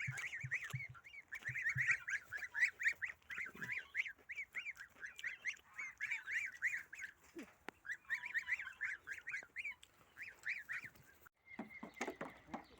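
Duck calling over and over in quick, rapid notes, about five a second, with short pauses, while it feeds on carrots. The calls stop abruptly about eleven seconds in, and a thin steady tone and some clicks follow.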